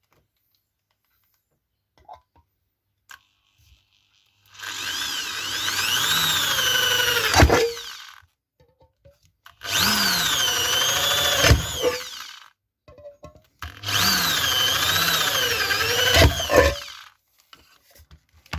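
Power drill boring three holes through a thin metal jar lid, one after another: three runs of a few seconds each, the motor's whine wavering up and down in pitch as the bit bites, with a sharp click near the end of each run.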